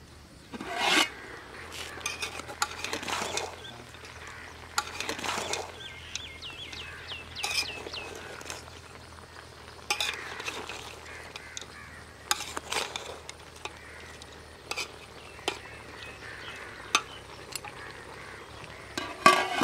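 Metal ladle stirring chicken pieces in an aluminium cooking pot, with scraping and light clinks against the pot and its lid. Crows caw a few times.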